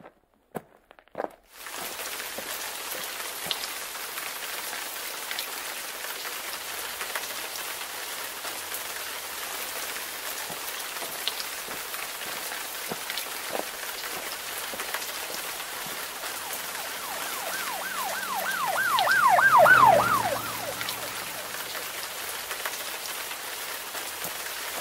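Steady rain hiss with scattered drop ticks. Near the end, a rapid warbling tone of about four sweeps a second builds over a low rumble, then stops abruptly.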